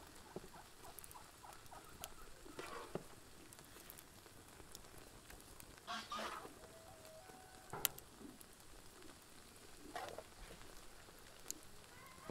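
Spoonfuls of minced meat and bean sauce dropped onto cooked rice in a pot: a few faint, soft plops and a click, with faint bird calls in the background.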